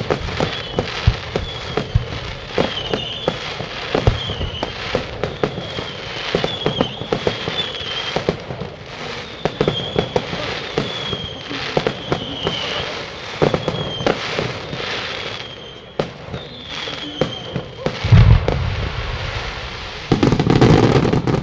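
Aerial fireworks display: a rapid run of sharp bangs and crackles from shells bursting, with a high wavering whistle recurring through much of it. Near the end a deep boom is followed by a loud, dense barrage.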